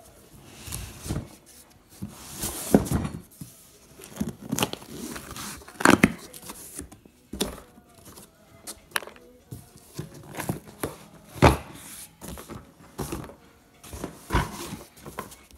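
Corrugated cardboard shipping box being opened and handled: tape tearing, flaps and cardboard scraping and rustling in irregular bursts, with a few sharp knocks of the box.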